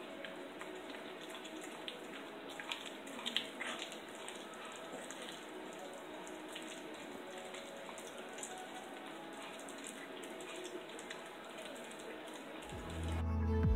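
A Jack Russell terrier chewing a raw Cornish hen back, with scattered small crunches and clicks over a steady hiss, a few louder ones about three seconds in. Ambient electronic music comes in about a second before the end.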